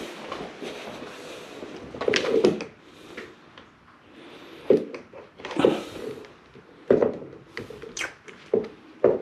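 A series of sharp knocks and clatters, about half a dozen spread over several seconds, as small items and tools are handled and set down on a bathroom vanity countertop.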